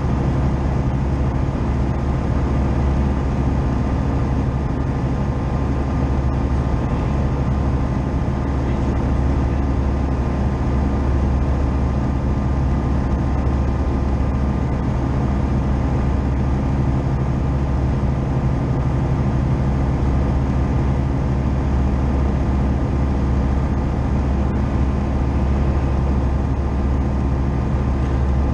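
Tecnam P2002 JF light aircraft's four-cylinder Rotax engine and propeller running at steady power in the climb-out, a loud, even drone with a deep, low hum and rushing air over it.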